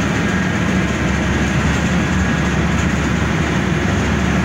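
Steady engine drone and road noise heard from inside a moving city bus.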